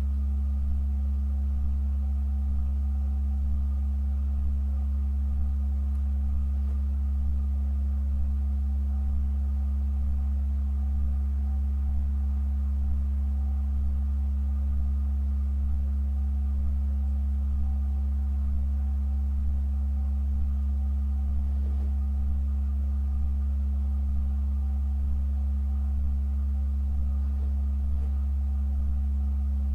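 Pipe organ holding a deep, steady low chord that does not change, with fainter higher tones sounding above it.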